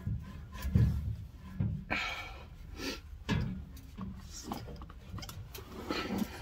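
Irregular clunks, knocks and scrapes of a steel exhaust section being wiggled and pushed onto the slip joint of a 5-inch MBRP muffler.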